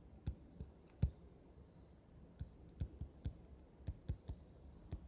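Stylus tapping and clicking on a tablet screen during handwriting: irregular sharp clicks, with a pause of about a second a little after the start.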